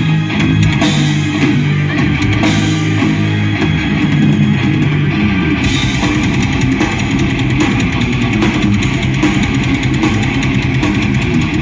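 Heavy metal band playing: distorted electric guitars over a drum kit. About halfway through the drumming becomes denser, with rapid bass-drum strokes filling the low end.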